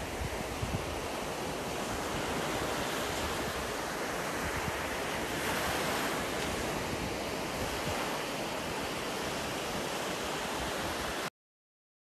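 Sea waves breaking and washing up a beach: a steady rushing surf that swells and ebbs, cutting off suddenly near the end.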